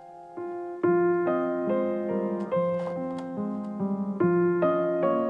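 Background piano music, a steady run of single notes at about two or three a second.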